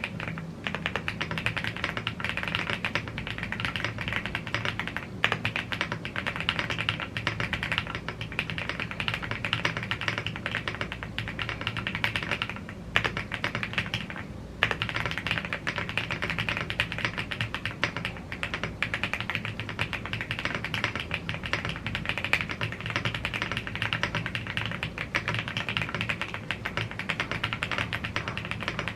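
Rapid, continuous typing on a YUNZII AL75 gasket-mounted aluminium mechanical keyboard with Blue Grey tactile switches and double-shot PBT Cherry-profile keycaps. There is a short lull about thirteen seconds in.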